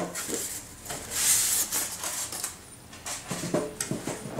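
Molded foam packaging block being pulled out of a cardboard box: foam scraping and rubbing against the cardboard, with a few light knocks from the box being handled.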